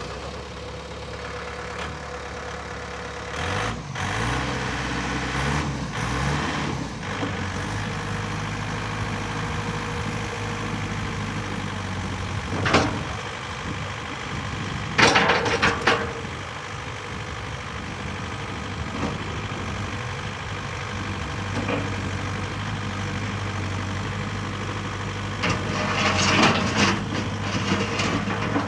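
Diesel engine of a Volvo BL70B backhoe running, its note shifting up and down a few times about four to seven seconds in, then settling to a steady idle. A few short clanks and rattles over it, the loudest about halfway through and near the end.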